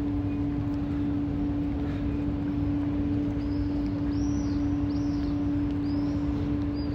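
Open city-square ambience: a steady hum under a low background rumble, with several short high chirps in the second half.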